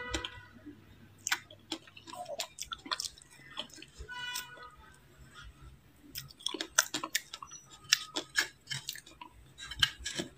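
Close-miked crunching and chewing of frozen ice coated in matcha powder, in irregular bursts of crisp crackles with short pauses between bites.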